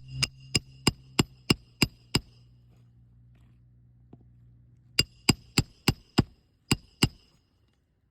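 Hammer striking a steel roof snake, the bar-type nail driver used to set roofing nails under shingles without lifting them far. There are two runs of sharp, ringing metallic strikes about three a second: eight, then after a pause of nearly three seconds, seven more.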